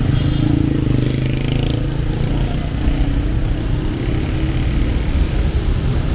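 Street traffic: a steady low rumble of vehicle engines, with one engine running close by for the first two or three seconds.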